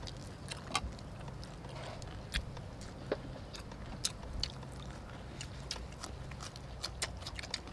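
People chewing and smacking their lips while eating chicken wings, rice and lettuce with their fingers: irregular short, sharp mouth clicks and smacks over a low steady hum.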